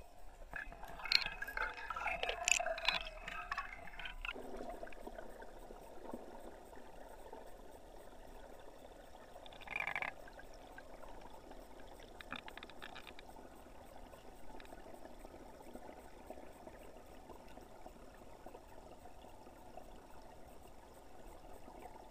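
Moving water heard underwater, muffled through the camera's housing: a louder crackling, splashy stretch for the first few seconds, then a steady low rush with a brief burst about ten seconds in.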